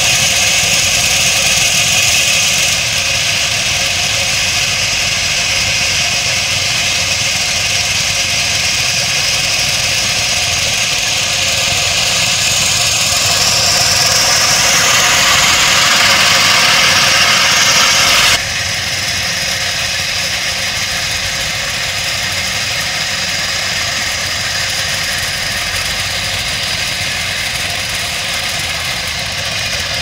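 Diesel engines of heavy site machinery running steadily, with an abrupt change in the sound about two-thirds of the way through.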